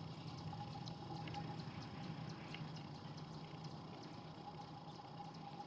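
Faint, steady outdoor background noise with a thin constant hum and scattered soft ticks.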